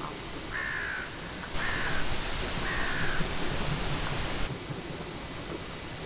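A crow-family bird gives three harsh caws, each falling slightly in pitch, about a second apart. A loud steady hiss comes in about a second and a half in and cuts off sharply near the three-quarter mark.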